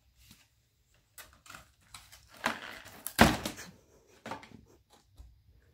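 Bobcat chewing and tearing a cardboard box: irregular cardboard crunching and ripping, with the loudest rip about three seconds in.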